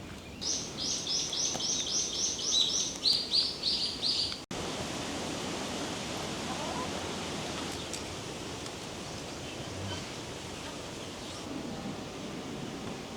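A bird singing a run of evenly spaced high repeated notes, about four a second, the last few pitched lower, over steady outdoor ambience. After a break about four and a half seconds in, only the steady outdoor background noise remains.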